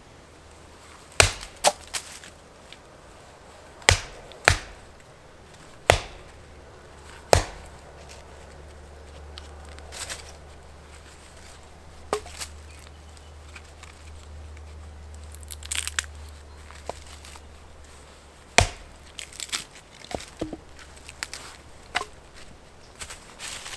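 Hatchet splitting small pieces of firewood on a log chopping block: about six sharp wooden strikes in the first eight seconds, then one more after a long pause. Lighter knocks and the crackle of split wood being handled fall between and after the strikes.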